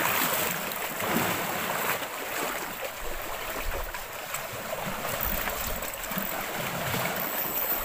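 Lake water lapping and washing against a rocky shore, a steady wash of noise, with occasional low rumbles of wind on the microphone.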